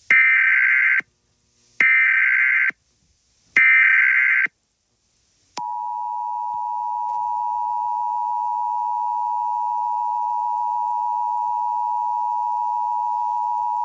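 Emergency Alert System header: three one-second bursts of buzzy digital SAME data tone about a second apart, then, about five and a half seconds in, the steady two-tone EAS attention signal held for about eight seconds.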